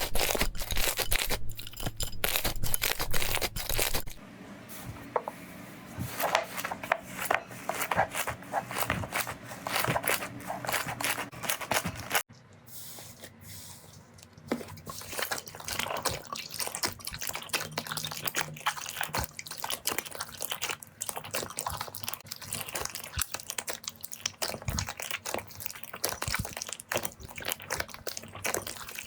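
Slime being squeezed, pressed and stretched by hand, giving dense crackling and popping clicks. The texture changes abruptly about 4 and 12 seconds in as one slime gives way to another.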